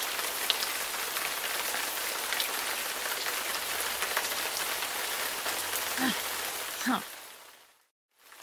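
Steady rain: an even hiss of falling rain with scattered drop ticks, fading out near the end.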